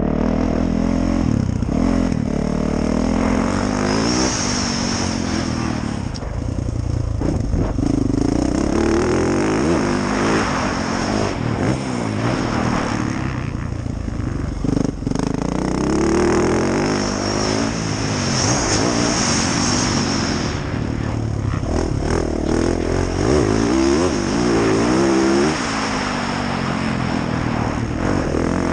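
2019 Yamaha YZ450F's single-cylinder four-stroke engine being ridden hard, its pitch rising under throttle and dropping back over and over through the gears.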